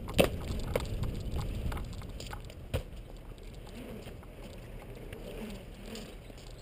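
Mountainboard wheels rolling over a concrete skatepark, a low rumble that slowly fades, with a few sharp knocks. The loudest knock comes just after the start and another about three seconds in.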